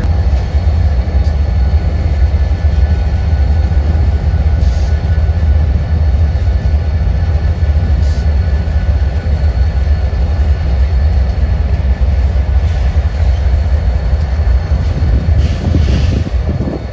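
A train running past with a steady, loud low rumble and a few brief clicks from the wheels.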